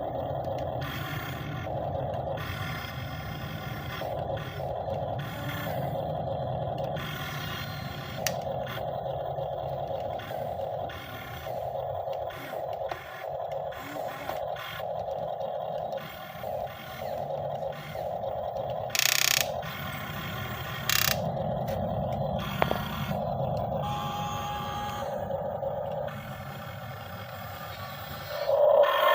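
Excavator working, its motor whine starting and stopping every second or so as the controls are worked, over a steady low hum, with a few short clicks and scrapes.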